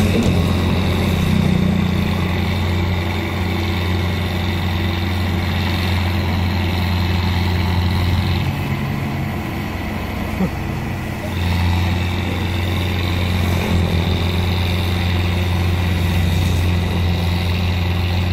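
Tractor engine running steadily under load in a muddy paddy field. It eases off for a few seconds around the middle, then comes back up.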